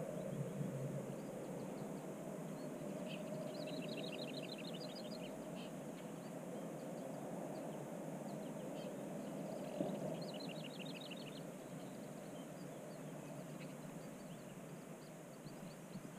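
A small bird singing rapid trills of short high chirps, two clear bursts of about two seconds each, with scattered single chirps between, over a steady low rush of background noise.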